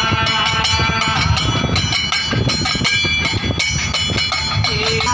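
A steel thali plate beaten as rhythmic folk percussion for a bhajan: sharp metallic strikes about four or five a second, each leaving a ringing tone.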